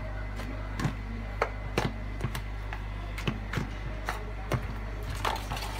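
Knife blade knocking and scraping against a horseshoe crab's shell as the carapace is pried open, in irregular sharp clicks and taps about every half second, over a steady low hum.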